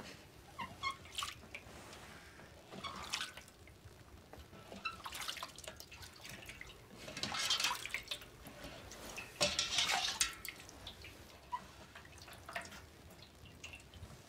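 Water splashing and dripping in short bursts as a wet cloth is worked over a bare foot, with a few small drips between them.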